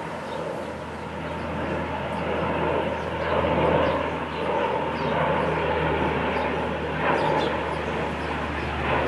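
Steady low rumble of distant engine noise, with a few brief louder sounds over it about three and a half, seven and nine seconds in.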